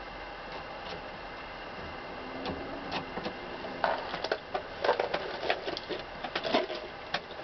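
Small metal clicks and taps as the presser bar spring and its parts are fitted on the presser bar of a Singer 127 sewing machine. The first couple of seconds are quiet, then scattered clicks build into a quick cluster from about four seconds in.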